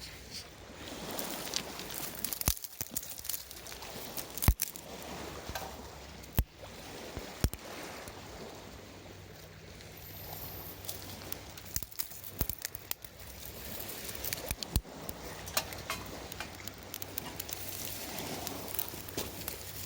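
Small wood campfire crackling, with irregular sharp pops every few seconds over a steady low hiss.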